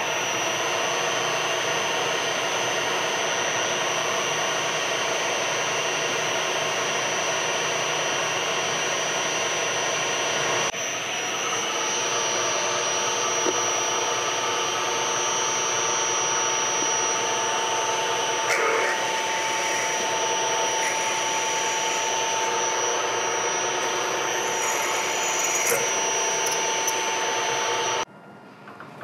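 Sharp LMV50 vertical mill running steadily with a constant high whine while spot-drilling and then drilling holes in a brass vise jaw. The tone shifts about ten seconds in, a few short scrapes come later, and the sound cuts off suddenly a second before the end.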